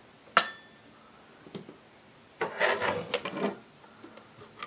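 Small parts clinking and clattering while a radio is taken apart. There is one sharp clink with a short ring near the start, then about a second of rattling clatter a little past halfway.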